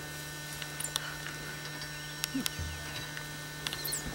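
Steady low electrical hum with scattered soft clicks, a few faint short high-pitched chirps, and a brief low thud a little past halfway.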